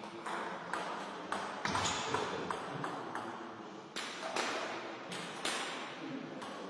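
Table tennis ball bouncing: about ten sharp, light taps at uneven intervals, each with a short echo off the sports hall walls.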